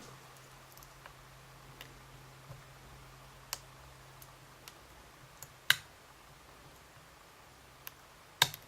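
A few sparse, sharp metallic clicks from a lock pick working the sliders of a small Yale dimple lock, with one louder click a little before six seconds in, over a faint steady low hum.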